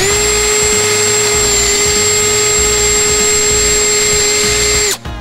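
Cordless drill winding up and running at one steady speed for about five seconds, drilling out an aluminium coolant crossover tube for a PI intake manifold, then stopping suddenly.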